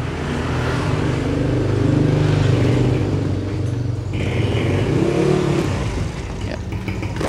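A motorcycle engine running nearby, loud and steady, its pitch rising and falling as it is revved about halfway through.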